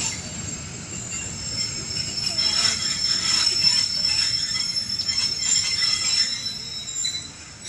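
Pakistan Railways passenger train running along the track, heard from aboard: a steady rumble of the wheels on the rails with thin, high-pitched wheel squeal above it, louder through the middle and easing near the end.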